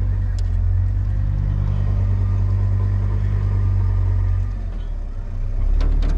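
A vehicle engine running with a steady low drone. It eases off briefly about four and a half seconds in, then picks up again. A few sharp clicks come near the end.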